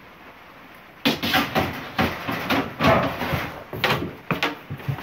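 Stored junk being handled and shifted by hand: a run of irregular scraping, knocking and clattering that starts about a second in, as a window sash and long rods are dragged and moved among boxes and ladders.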